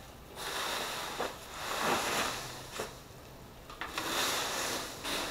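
Leaf rake sweeping dry fallen leaves across a concrete driveway: three long raking strokes of rustling and scraping, with a few light clicks in between.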